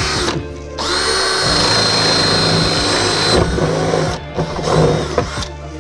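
Power drill running with a steady whine: a burst that stops just after the start, then a run of about two and a half seconds, followed by some clatter. Background music plays underneath.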